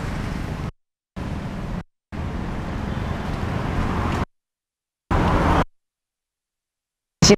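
Street traffic noise from passing motorbikes and cars, heard through a wireless lavalier microphone at a distance. It cuts off abruptly to dead silence several times and swells slightly in the middle before a short louder burst.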